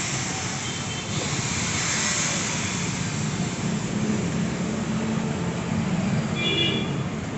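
Steady mechanical noise, a continuous rush with a low hum underneath, and a brief high tone about six seconds in.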